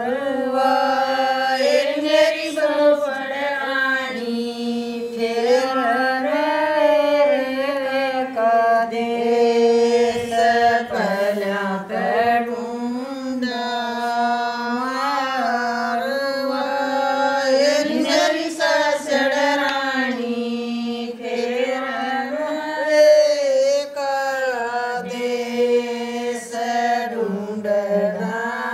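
A group of Haryanvi village women singing a Sawan (rainy-season) folk song of separation together in unison, unaccompanied, with long held notes that slide between pitches.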